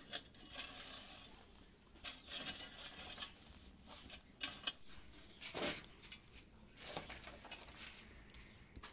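Burning wood and embers in a brick wood-fired oven crackling faintly, with irregular clicks and a few scraping rustles as the coals are raked with a long wooden stick.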